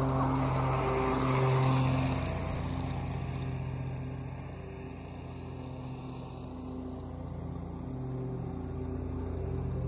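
Grasshopper riding mower's engine running at full throttle with the deck blades spinning as it mulches dry leaves, with a rush of leaves blown out of the deck. It passes close by about a second in, then fades as it moves away and grows a little louder again near the end.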